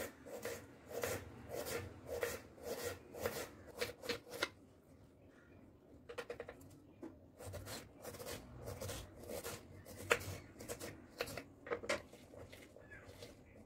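Small kitchen knife slicing a peeled raw potato into thin sticks on a wooden cutting board: a run of quick, short cutting strokes, about two a second, each ending in a light tap of the blade on the board. The strokes stop for a moment about four and a half seconds in, then start again and go on until near the end.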